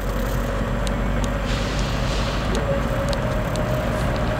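Car engine and road noise heard from inside the cabin while driving, a steady drone.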